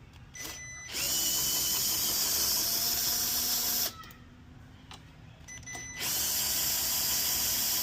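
Power drill-driver spinning, in two steady runs of about three seconds each, each preceded by a short blip as the trigger is pressed, while backing out fasteners during wheel removal.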